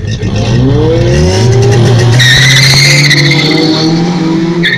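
Naturally aspirated VW Brasília drag car launching off the start line. The engine revs climb steeply for about a second, then hold a steady high note as the car pulls away. A high tire squeal comes in about two seconds in and lasts over a second.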